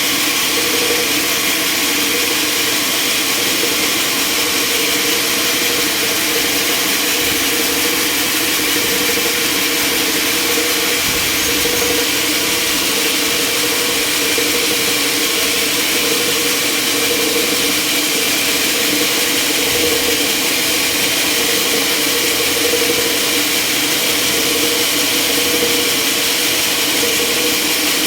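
Sawmill machinery running steadily: a constant mechanical hum with an even hiss over it.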